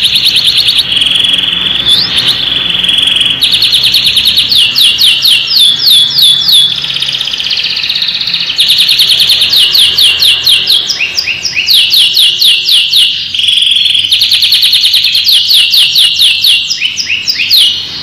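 Domestic canary singing a fast, continuous song. Runs of rapidly repeated chirping notes alternate with rolled trills held on one pitch.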